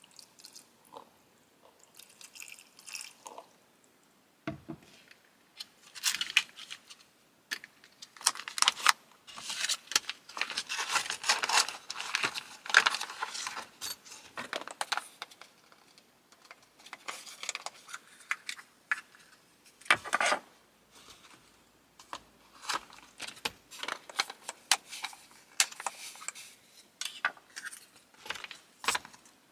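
Food packaging crinkling and tearing, with light clicks and taps of tableware, in irregular bursts that are busiest in the middle.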